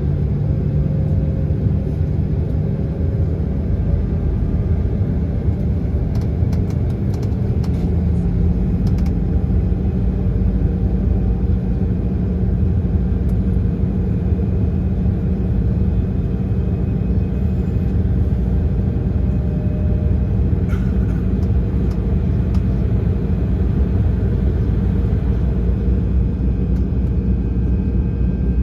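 Jet engines of an Embraer ERJ-170 heard inside the passenger cabin: a steady rumble with a hum whose pitch steps up slightly about eight seconds in.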